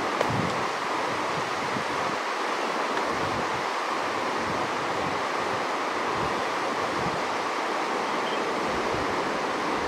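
Steady rushing of a shallow river flowing over rocks and small rapids, with one brief knock just after the start.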